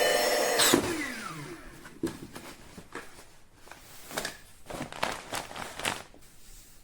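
A small electric motor running steadily, then switching off about a second in and winding down with a falling whine. Light scattered rustles and clicks follow.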